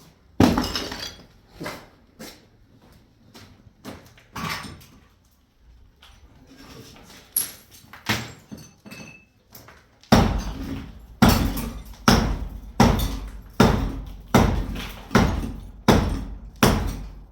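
Repeated heavy knocks or blows: a few scattered ones at first, then a steady run of about nine strikes from about ten seconds in, a little under a second apart.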